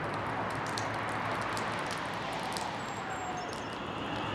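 Steady rain falling on a wet station platform and track, with many sharp ticks of drops splashing close by that thin out near the end.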